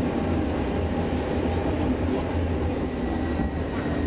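A32 tram running along the track, heard from inside the car: a steady low rumble of wheels and running gear with a faint steady high whine above it.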